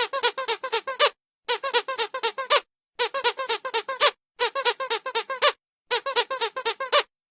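Rubber squeaky dog toy squeezed rapidly in quick runs of about seven or eight squeaks, each run lasting about a second, with short pauses between runs, five runs in all.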